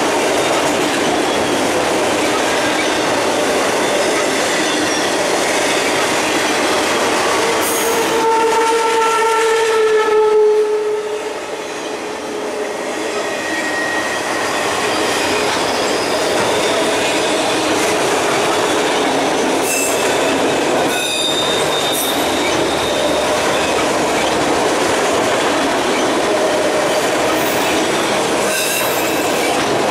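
Empty autorack freight cars rolling past: a steady rumble and rattle of wheels on rail. About eight seconds in a long wheel squeal sets in and dips in pitch as it fades near eleven seconds. Shorter, higher squeals and a few sharp clanks come around twenty seconds in.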